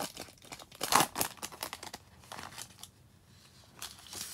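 Foil wrapper of a baseball card pack crinkling and tearing as it is pulled open by hand, busiest and loudest in the first two seconds, then a few fainter rustles.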